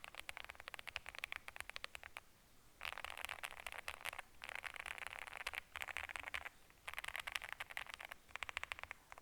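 Typing on a Leobog Hi75 aluminium gasket-mount keyboard in its stock build (PE foam, lubed and filmed Alpaca V2 linear switches, double-shot ABS/PBT keycaps): rapid runs of key clacks in bursts with brief pauses, a marbly sound that the PE foam gives it.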